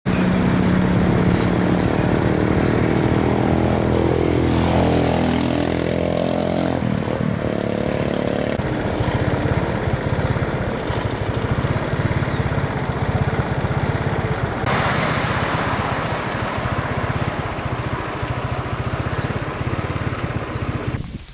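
Road traffic: vehicle engines running and passing, their pitch rising and falling during the first seven seconds, then a steadier rush of traffic noise that changes abruptly in tone a few times.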